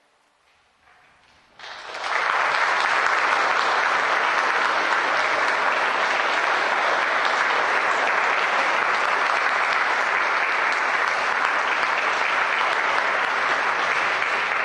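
Audience applause, breaking out suddenly about one and a half seconds in after a brief silence and then going on steadily.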